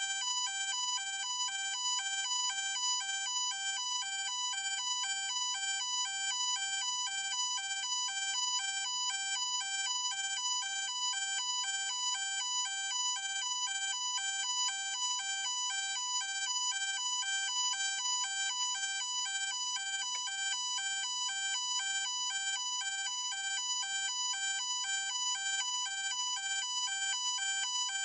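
Electronic ambulance siren sounding a two-tone hi-lo pattern, switching rapidly back and forth between two pitches at an even pace.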